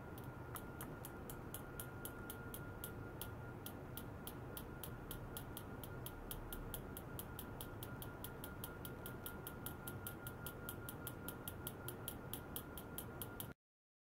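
Rapid light metallic ticks, about five a second, from a thin metal rod tapping the probe-fitted stainless test rod, over a faint steady high whine. The ticking stops abruptly near the end and the sound drops out entirely.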